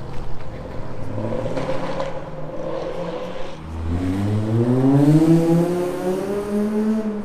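A car engine accelerating hard: after a rougher, uneven start, its pitch climbs steadily for about three seconds as the car pulls away, then ends abruptly.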